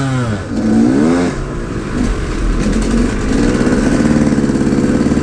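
Two-stroke motorbike engine under way. The revs drop, climb again and fall back in the first second and a half, then the engine pulls steadily with its pitch slowly rising.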